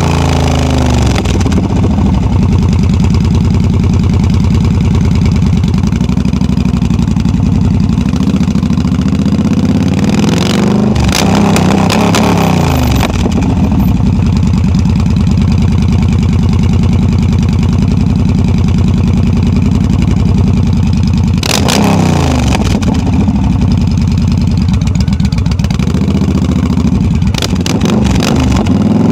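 Yamaha V Star 1300 (XVS1300) V-twin engine running loud through drag pipes as the bike rides along. The engine note drops and climbs again twice, about a third of the way in and about three-quarters of the way through.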